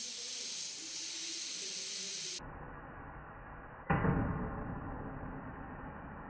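Steady hiss of a gas brazing torch flame for the first couple of seconds. Then, after a cut, a single sharp hit about four seconds in that dies away over a second or two.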